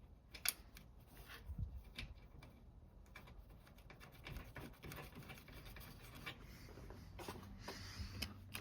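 Faint, irregular small clicks and light rubbing of metal parts as a nut is fitted by hand onto the rear mounting stud of a chrome door trim.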